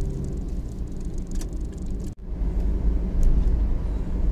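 Steady low road and engine rumble of a Mazda Scrum kei cargo van driving, broken by a sudden momentary dropout about two seconds in.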